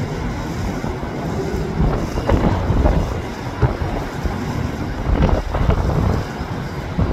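Wind buffeting the microphone over the low, steady rumble of a departing Airbus A320-214's CFM56 jet engines, with irregular gusts.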